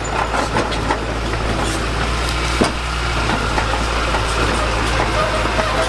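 Diesel engine of heavy earthmoving machinery running steadily, with scattered knocks and clanks over it and a sharper knock about two and a half seconds in.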